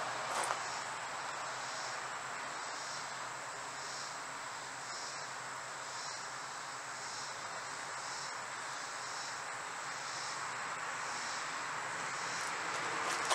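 Steady outdoor hiss with insects chirping in a regular high pulse, about every three-quarters of a second.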